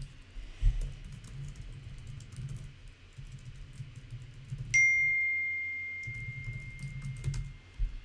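Typing on a computer keyboard in quick clicks. A little past halfway comes a single bell-like notification ding that rings and fades over about three seconds as a new message arrives, with a few more key clicks before it dies away.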